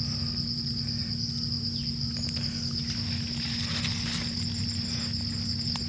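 Steady high-pitched trill of insects such as crickets, unbroken throughout, over a low steady hum, with a couple of faint clicks.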